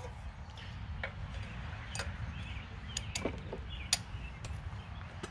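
A handful of light, irregularly spaced metallic clicks and taps as a small belt-keeper bracket is worked onto the idler-pulley bolt of a Craftsman tiller by hand.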